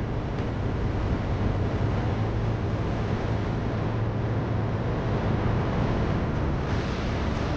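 Steady low hum of a large ship's engine and machinery under way, with wind noise on the microphone that grows a little hissier near the end.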